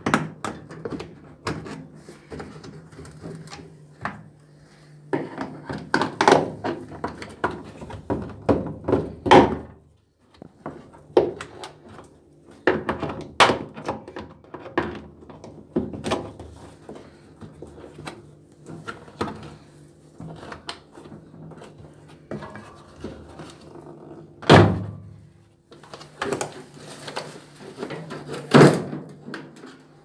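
Hand tools clicking, scraping and knocking on the metal hose clamps and plastic detergent dispenser housing of a washing machine as the hoses are worked loose, with two loud thunks in the last six seconds.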